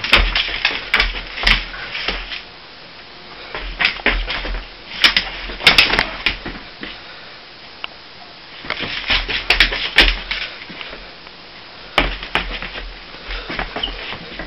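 A dog playing with a knotted rope toy on a vinyl tile floor: bursts of rapid clicking, scrabbling and knocking from its claws and the toy on the floor, with dull thumps, coming in four flurries with short pauses between.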